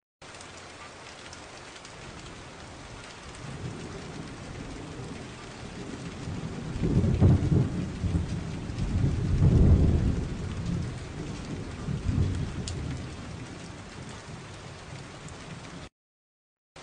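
Steady rain hiss with rolling thunder that swells through the middle in two big rumbles, then a smaller one; the sound cuts off abruptly near the end.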